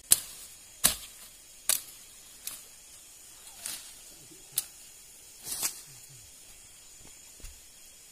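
Footsteps pushing through leafy undergrowth at night, a sharp rustling stroke about every second as stems and leaves brush past. The steps fade out about six seconds in.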